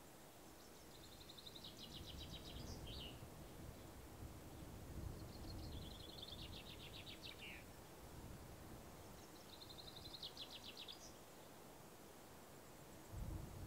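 A songbird singing the same short phrase three times, a few seconds apart: a quick run of high trilled notes ending in a downward slur. A faint low rumble of wind runs underneath.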